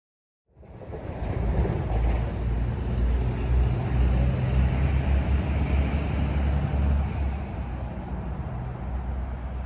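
Train running past with a loud, steady low rumble and a deep engine hum. The sound cuts in abruptly about half a second in and eases slightly near the end.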